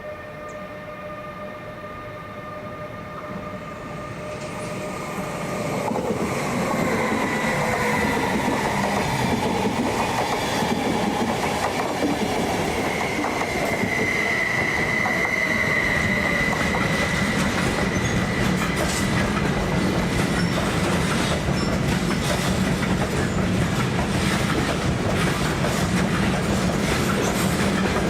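Train rolling past through the station: it grows louder over the first six seconds, then runs steadily with a long, high wheel squeal through the middle and wheels clacking over rail joints and points.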